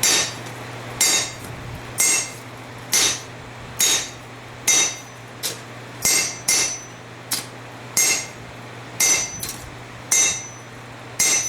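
Hand hammer blows on a hot steel blade over an anvil, struck about once a second with an occasional quick double blow, each strike ringing briefly. The smith is working the blade's tip and straightening it.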